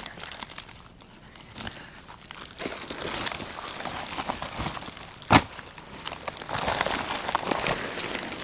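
Plastic packaging crinkling and rustling as a white plastic gift bag is handled and unpacked, with a single sharp snap about five seconds in. The crinkling grows louder and busier over the last two seconds.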